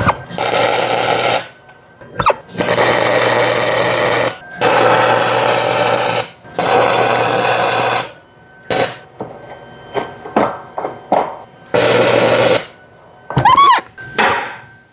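Arc welder tack-welding a bracket in place: five bursts of crackling and sizzling, each one to two seconds long, with short taps and knocks between them.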